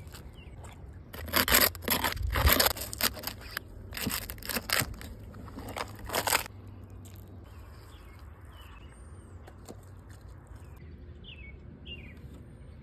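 Knife carving through the crisp crackling skin of a whole roast pig: a run of loud crunches over several seconds. Later, birds chirp faintly.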